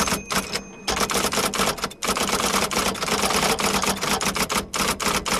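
Typewriter sound effect: keys clacking in a rapid run, several strokes a second, with brief pauses.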